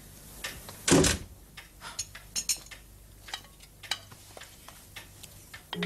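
Crockery and dishes clinking and knocking as they are handled for washing up, with a louder clatter about a second in and scattered lighter clinks after.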